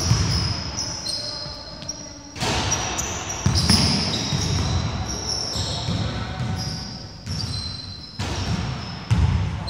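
Basketball bouncing on a wooden gym court during play, with repeated thuds and short high-pitched squeaks from sneakers, echoing in a large hall.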